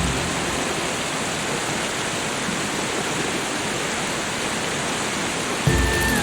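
Steady rushing sound of water, an even hiss with no beat. Soft music with held tones comes back in near the end.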